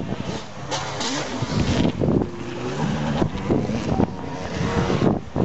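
Motocross bike engines revving hard, the pitch climbing and dropping again and again as the riders open and close the throttle.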